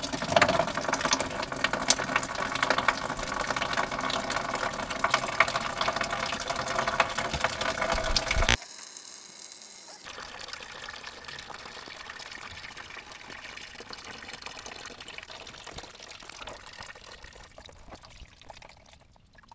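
Washer fluid pouring out of the open pump port of a Mercedes C-Class washer-fluid reservoir and splashing into a drip tray. The heavy splashing stops abruptly a little under halfway through. After a short silence a much quieter, thinner trickle runs on and fades out near the end.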